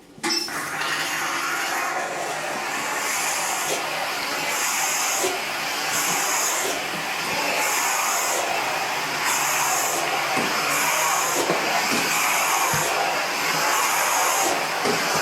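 Karcher SC3 steam cleaner hissing steam. It starts abruptly just after the start, with a higher hiss that pulses on and off about every second and a half over a steady rush.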